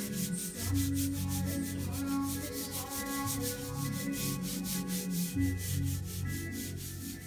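Fingers rubbing charcoal into drawing paper, a dry scraping as the drawing is blended, over a pop song with a steady bass line.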